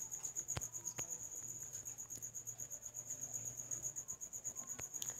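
A high-pitched trill pulsing rapidly and evenly without a break, over a low steady hum, with a few short clicks.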